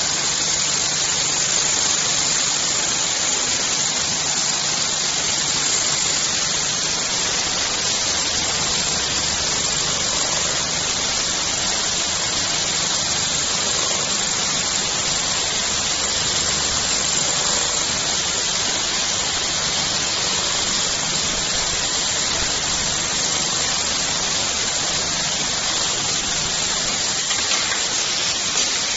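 JYL P4520 industrial automatic cap brim sewing machine running steadily, a low even hum under a strong, constant hiss.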